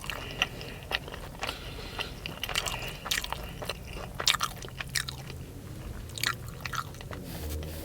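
Close-up chewing and biting of crunchy food, with many irregular crisp crunches and mouth clicks.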